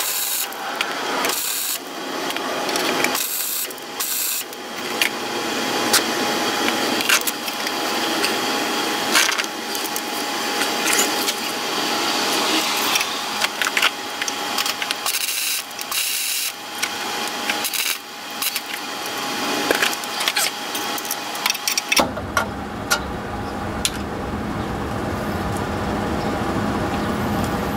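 Flux-core wire-feed welder arcing in long crackling runs with short breaks between beads, throwing heavy spatter of molten metal. About 22 seconds in the crackle stops and a steady low rumble takes over.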